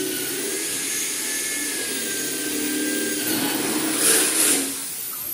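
A power tool running steadily with a noisy whir and a thin high whine, growing louder for a moment about four seconds in; near the end a high whine falls in pitch.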